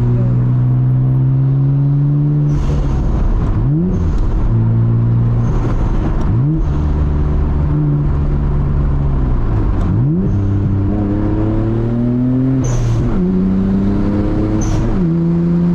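Nissan Skyline GT-R R32's twin-turbo straight-six accelerating hard through the gears. The revs climb and drop sharply at each shift, several times, with short hisses at some of the shifts.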